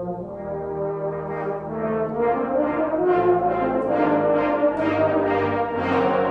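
Brass band playing held chords that swell louder over the first two seconds or so, then a run of accented notes about twice a second.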